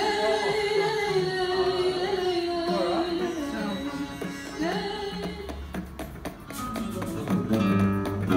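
A woman singing long, sliding held notes in an Indian classical style over an instrumental accompaniment. Near the end, lower plucked string notes come in.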